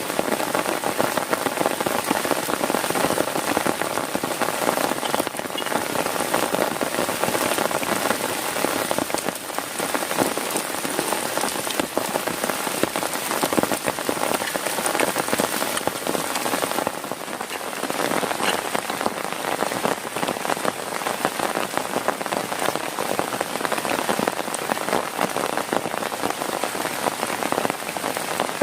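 Heavy rain falling on a tent, a dense, steady patter of countless drops.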